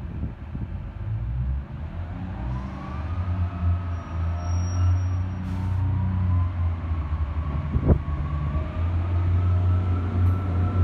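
Class 144 Pacer diesel multiple unit pulling away from the platform: its underfloor diesel engines rev up under load with a deep hum and a rising whine, getting louder as it accelerates past. One sharp knock sounds about eight seconds in.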